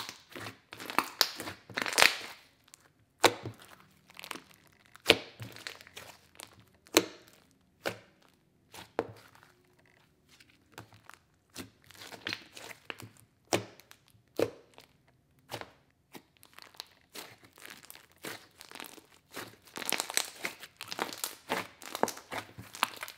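Hand squeezing and pressing thick slime against a countertop: irregular sticky crackles and pops as the slime is squashed and pulled apart. A few single pops stand out, and the crackling gets denser in the last few seconds.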